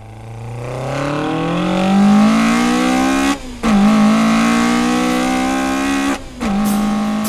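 Car engine accelerating hard, its pitch climbing for about three seconds, then cutting out briefly twice with a drop in pitch, as at gear changes, before running on steadily.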